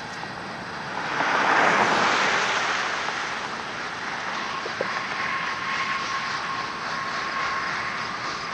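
Freight cars of a coal train rolling past, with a steady rumble and rush of wheels on rail that swells loudest about a second in. A thin, steady squeal joins about halfway through and holds to the end, with faint regular clicks of wheels over rail joints.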